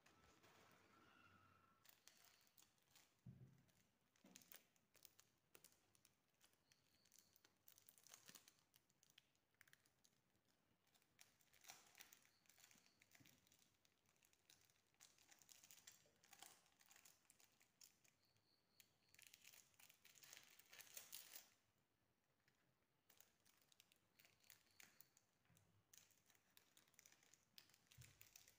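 Faint crinkling and rustling of a tissue-paper sky lantern and the wrapped wax fuel cell being handled and unwrapped, with many small clicks and a short lull about two-thirds of the way through.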